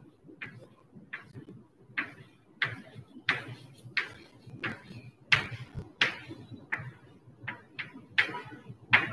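Chalk on a blackboard, drawn in short strokes: a steady run of sharp taps and scrapes, about three every two seconds.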